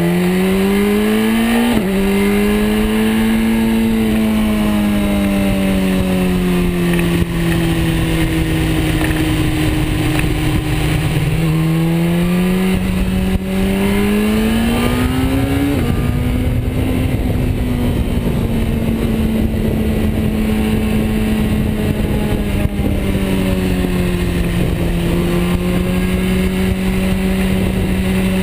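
BMW S 1000 RR's inline-four engine running under way, heard from on the bike. Its pitch rises and falls with the throttle, climbing early on and again before a sharp drop about 16 seconds in as a gear is changed, then holding fairly steady.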